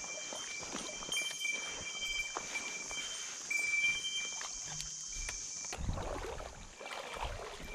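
A steady high-pitched insect buzz, like a summer cicada, cuts off suddenly about six seconds in. Short, thin, high notes repeat through it. Low rumbles and thumps follow near the end.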